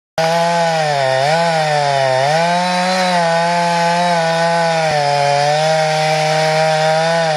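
Two-stroke chainsaw running at full throttle in the felling cut through the trunk of a 37-inch white pine. Its pitch sags briefly twice in the first two seconds as the chain loads up in the wood, then holds steady.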